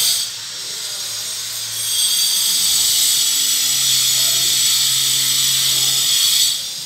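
A steady, high-pitched hiss with a faint low hum beneath it. It grows louder about two seconds in and drops away near the end.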